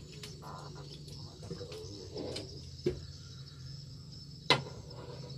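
Steady, high insect chirring with a low hum beneath it, broken by two sharp clicks about a second and a half apart, the second the loudest.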